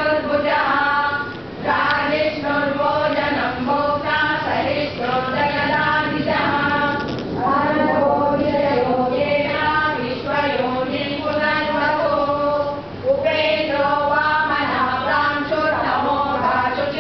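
A group of women chanting Sanskrit slokas together in unison, a sung, melodic recitation in phrases with brief pauses for breath between them.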